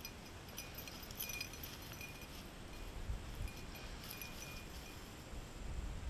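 Faint metallic jingling, a few short high clinks near the start and again around three seconds in, over a low rumble of wind and handling noise on a gun-mounted camera carried through tall dry grass.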